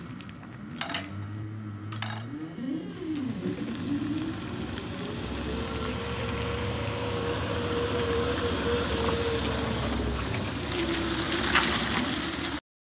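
Kalmar EC5-600 electric forklift running, its motor whine gliding up and down in pitch, with two short clicks in the first couple of seconds. From about five seconds in, a steadier, higher whine over a low hum holds for several seconds. The sound cuts off suddenly near the end.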